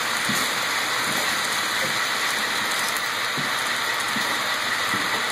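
HO scale freight train of autorack cars rolling past: a steady hiss of metal wheels running on the rails, with a few faint clicks.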